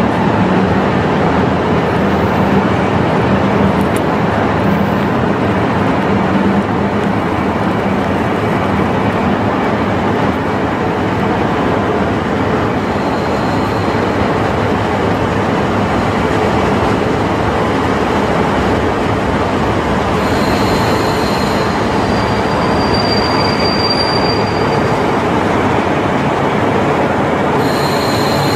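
KiHa 40 diesel railcar pulling into the platform: a steady rumble of engine and wheels, with short high-pitched squeals as it brakes, a few seconds of squealing about two-thirds of the way in and again near the end.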